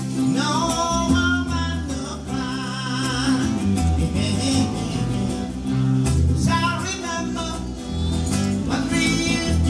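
Live band playing: acoustic guitars and electric bass guitar, with a voice singing in phrases over them.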